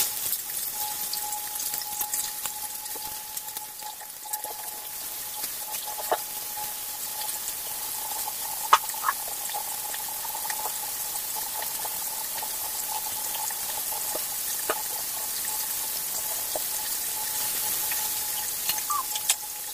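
Fish pieces frying in hot oil in a nonstick pan: a steady sizzle that starts suddenly as the fish goes in, with scattered pops and crackles and one sharp click about nine seconds in.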